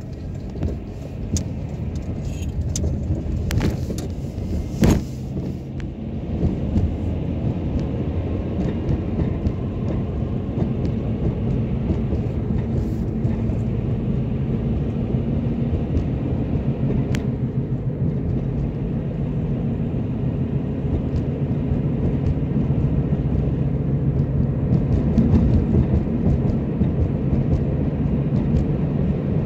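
Car cabin noise while driving: a steady low engine and road rumble that grows louder over the first several seconds as the car picks up speed. A few sharp knocks or rattles come in the first five seconds.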